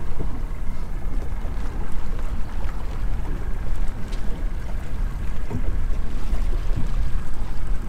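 Steady low rumble of wind and water around a small open outboard boat at sea, heard from the stern.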